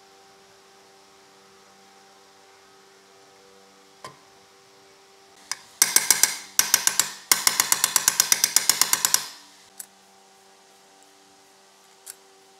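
Power tool working on the saw's cast aluminium base plate: two bursts of rapid, evenly spaced rattling strokes lasting about three and a half seconds in all, with a short break between them. A low steady hum and a few light clicks sit around them.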